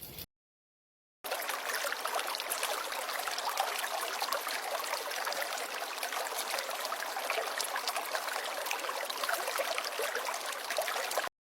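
Running water trickling and splashing steadily, starting about a second in after a moment of dead silence and cutting off abruptly just before the end.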